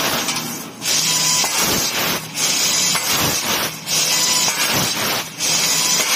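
Laser tube-cutting machine cutting a square metal tube, a loud steady hiss of the cut and its assist gas. It breaks off briefly about every one and a half seconds as the head moves between cuts.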